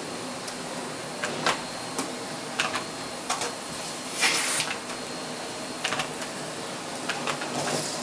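Miele S6 canister vacuum running as its floor head is pushed over carpet, a steady rushing hum broken by scattered sharp clicks and one brief hissing rush about halfway through.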